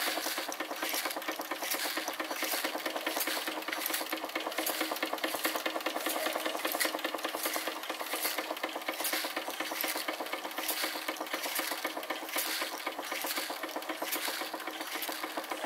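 Wilesco D16 toy steam engine running with a fast, even beat, driving a tinplate Bing bucket elevator whose metal buckets clatter as they scoop and tip caraway seeds.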